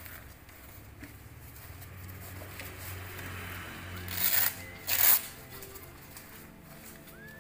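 Two short rips of a hook-and-loop strap on an Acerbis Gorilla knee brace being pulled open, about four and five seconds in, amid soft rustling of the brace's fabric.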